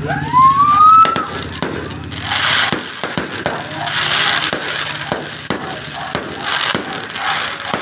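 Fireworks display: a run of sharp bangs from bursting aerial shells, with bursts of crackling several times.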